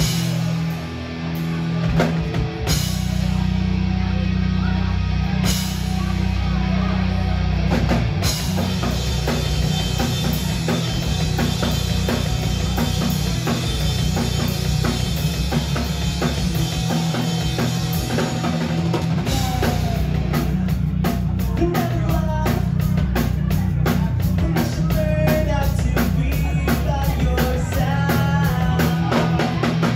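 Live rock band playing loud, with a drum kit driving it: a few big cymbal crashes in the first eight seconds. About twenty seconds in, the drumming turns to fast, even strokes while a melodic line bends above it.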